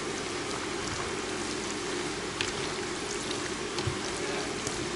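Water running steadily from a kitchen tap, switched on just before and flowing without a break, with a few light clicks over it.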